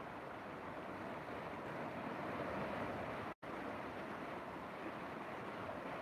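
Fast, choppy river water rushing and splashing against the bank in a steady wash of noise, which cuts out completely for a split second about halfway through.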